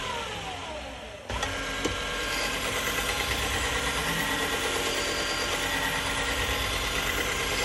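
Belt sharpener's sewing-machine-type motor spinning down with a falling whine as the foot pedal is let off. It is switched back on about a second in and then runs steadily, driving the leather stropping belt.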